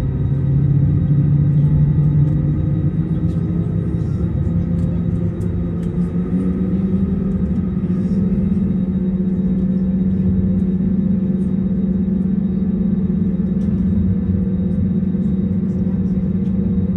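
Airbus A320neo cabin noise heard from a window seat over the wing on the ground: a steady low rumble and hum from the CFM LEAP-1A engines, whose pitch rises about six to eight seconds in and then holds.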